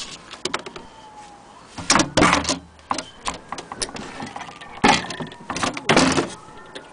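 Knocks and clatter of wood and metal as an antique Singer sewing machine is tilted on its wooden base and its wooden carrying-case lid is handled, with a cluster of sharp bangs about two seconds in and more near five and six seconds.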